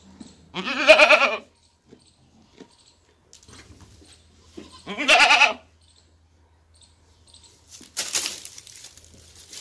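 A goat bleating twice, each a quavering call under a second long, the second about four seconds after the first. Near the end comes a short burst of noise.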